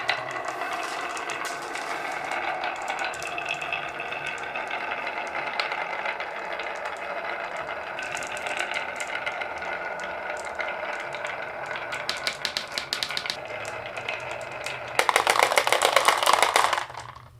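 Many marbles rolling and clicking along wooden marble run tracks in a continuous rattling clatter, which turns louder and denser for about two seconds near the end and then stops suddenly.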